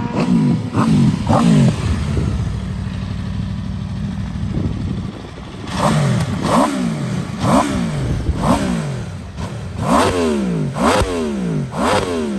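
Aprilia RSV4 1100 Factory's V4 engine revved with the throttle at a standstill. It gives three quick revs, idles steadily for a few seconds, then gives a string of about eight sharp revs, each rising and dropping straight back.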